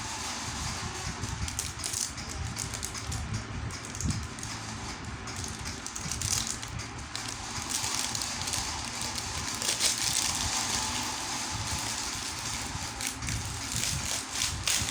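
Close handling noise: irregular rustling and small clicks over a steady low rumble.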